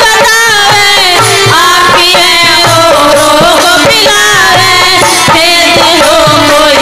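Indian folk devotional music, an instrumental passage: a gliding, ornamented melody over a steady hand-drum beat.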